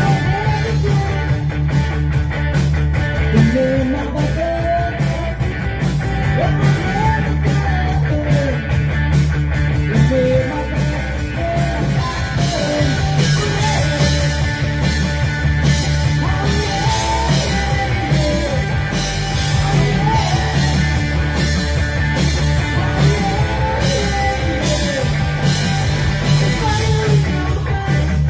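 Rock band playing live: electric guitar, bass guitar and drums, with a man singing into a microphone.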